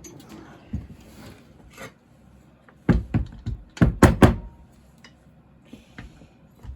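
Sharp knocks and clunks of chainsaw parts being handled and struck on a workbench during teardown, in two quick clusters: a few about three seconds in, and several more about four seconds in.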